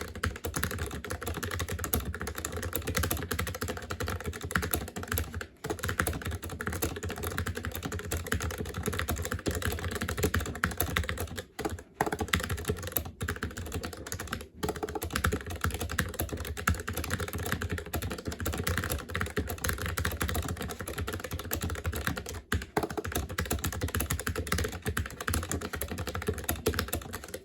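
Fast, continuous typing on a Redragon K614 Anivia ultra-thin 60% mechanical keyboard with low-profile red switches: a dense clatter of key clicks with a few short pauses.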